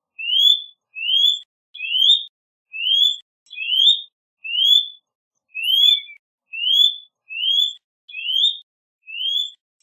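A bird repeating one short, rising whistled note, about once every three-quarters of a second, a dozen times over.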